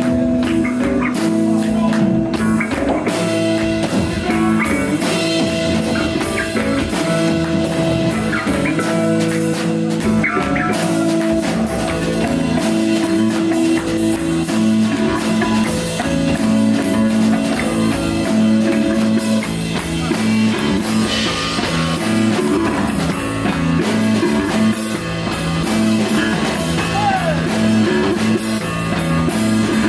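Rock band playing live, steady and loud: electric guitar holding long notes over bass and a drum kit with busy cymbals. The music is instrumental, with no singing.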